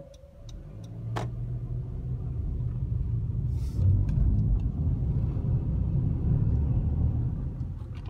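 A car driving on a highway, heard from inside the cabin: a steady low rumble of road and engine noise that builds over the first couple of seconds and then holds.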